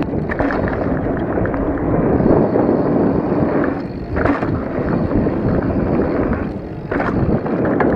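Wind rushing over the microphone together with the rumble and rattle of a full-suspension mountain bike rolling fast down a dirt trail. A few sharp knocks come from the trail, the clearest about four and about seven seconds in.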